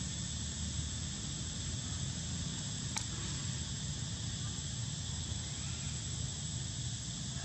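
Steady high-pitched drone of insects calling, over a low outdoor rumble, with a single sharp click about three seconds in.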